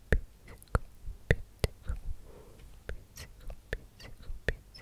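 Close-mic ASMR mouth sounds: a string of sharp, wet mouth clicks, irregular at about two to three a second, with a faint breathy whisper about halfway through.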